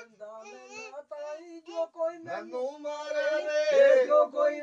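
Unaccompanied men's voices singing a lambi bhaakh, the long-drawn Punjabi folk chant. High, held notes waver in ornamented turns with short breaks between phrases, and the singing swells louder from about three seconds in.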